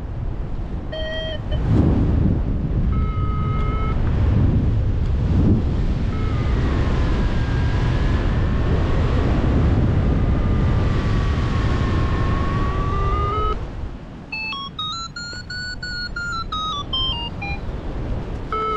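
Paragliding variometer sounding over wind rushing on the microphone: short beeps, then a long tone that slides slowly up and down, then quick beeps that rise and fall in pitch, the variometer's signal for climbing in lift. The wind noise eases off about two-thirds of the way in.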